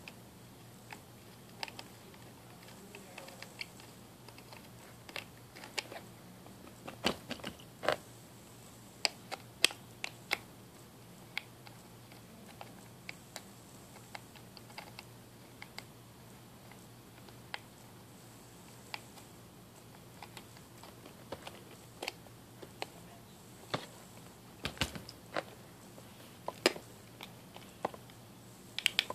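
Hands working at a small plastic water speaker's shell to take it apart: irregular sharp plastic clicks and taps, in clusters, over a faint steady low hum.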